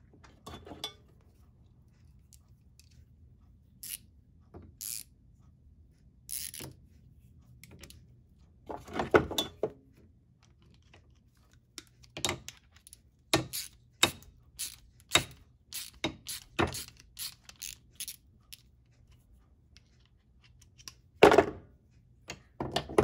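Pliers and a steel bolt clinking and knocking against a bench vise as the damaged bolt is worked by hand: scattered sharp metal clicks and taps, a couple of louder knocks, and a quick run of clicks past the halfway point.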